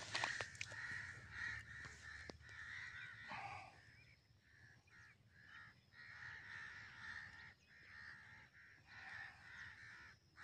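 A flock of crows cawing, many calls overlapping, faint and coming in waves with a short lull in the middle.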